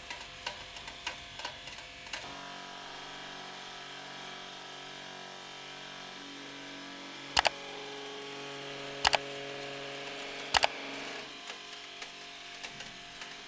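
Wet crackling as a pomegranate's rind and seeds are crushed by hand, cutting off about two seconds in. Then a steady hum of several held tones, with three sharp clicks about a second and a half apart in the middle, then a few light ticks.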